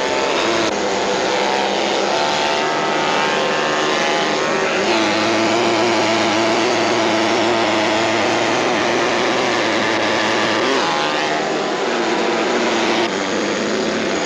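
Pneumatic carving hammer chiselling granite, running continuously, its pitch shifting a few times as the carver works.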